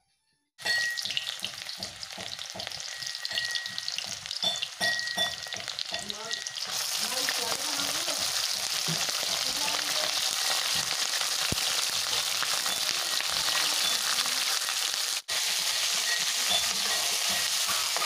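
Pork frying in hot oil in a black metal kadai, with a metal spatula stirring and scraping the pan. It begins with scattered crackles and pops and becomes a dense, steady sizzle, louder from about a third of the way in.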